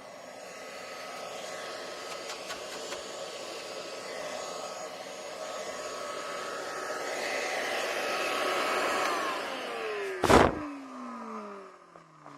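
6-gallon shop vac running with its canister nearly full of snow and little airflow. About nine seconds in the motor is switched off and winds down with a falling whine, with a single loud knock about ten seconds in.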